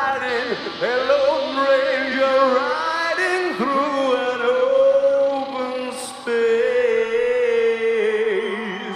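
Live rock music with singing over the band, loud and continuous, easing off near the end.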